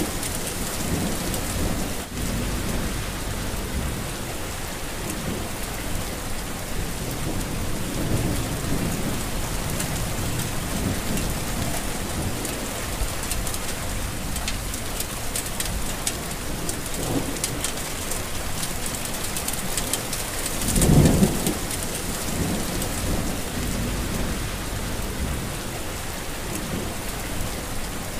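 Heavy rain falling steadily, with low rumbles swelling up a few times, the loudest about three-quarters of the way through.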